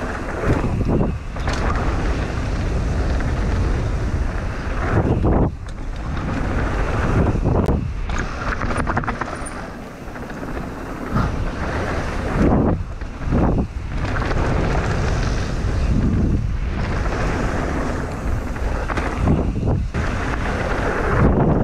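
Wind rushing over a riding mountain biker's camera microphone, mixed with the rumble of the bike rolling over a dirt trail. The noise stays loud, surging and dipping briefly every few seconds.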